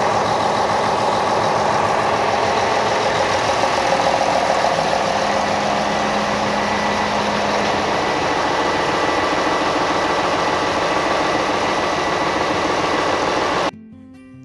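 Yanmar marine diesel auxiliary engine of a tugboat's generator set running steadily after being started; the sound cuts off abruptly near the end.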